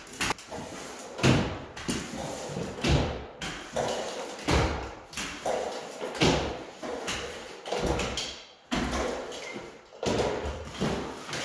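Drywall taping on stilts: a run of irregular knocks and thuds, roughly one a second, echoing in a bare drywalled room.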